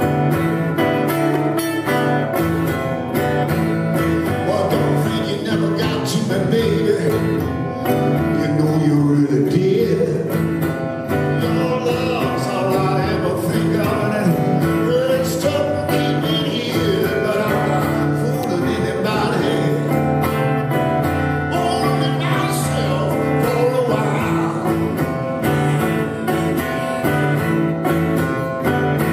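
Live solo acoustic music: a steel-string acoustic guitar strummed steadily under a wavering lead melody, with a neck-rack harmonica at the player's mouth near the end.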